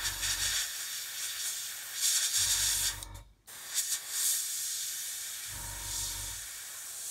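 Airbrush hissing steadily as it sprays thinned white paint in a light blending pass over a wet patch. The hiss drops out briefly about three seconds in, and a low hum rises and fades three times beneath it.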